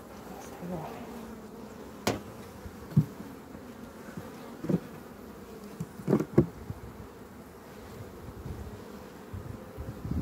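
Honeybees buzzing steadily around an open hive, a constant hum, with a few short sharp knocks about two to six seconds in.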